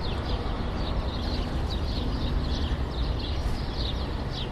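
City ambience: a steady low rumble of traffic, with many small birds chirping continuously above it.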